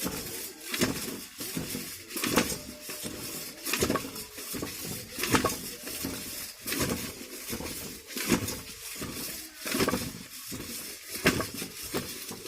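Metal clanking every second and a half or so, about eight times: a steel drill pipe being worked up and down in a hand-drilled well borehole.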